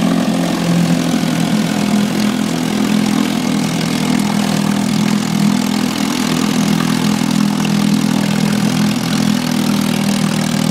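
1965 Ducktwin 3 HP two-cylinder outboard motor running steadily at an even speed, its propeller churning the water in a test barrel.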